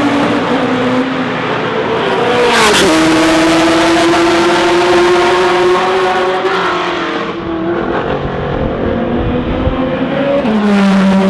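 Supercar engines at high revs on a racetrack: a car passes close about two and a half seconds in, its engine note dropping sharply in pitch as it goes by. Its note then holds and slowly rises as it accelerates away, fading into the distance, and another car passes near the end with a second drop in pitch.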